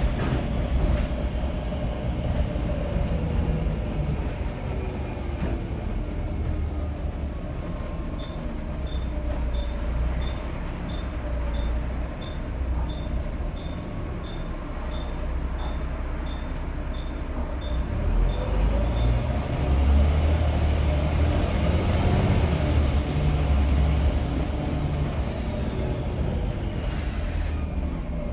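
Volvo B7TL bus's turbocharged diesel engine running under way, with a turbo whistle over the rumble. About two-thirds of the way through the whistle rises steeply in pitch as the bus accelerates, peaks, then falls away again. Earlier a short high beep repeats about one and a half times a second for some ten seconds.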